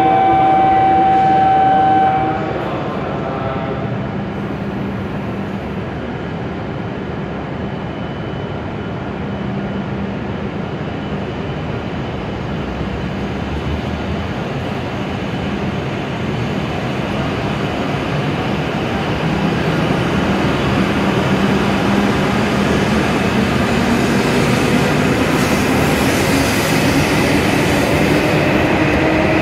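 W7-series Shinkansen pulling away from the platform and gathering speed, its running noise growing steadily louder, with the traction motors' whine rising in pitch near the end. A steady electronic signal tone cuts off about two seconds in.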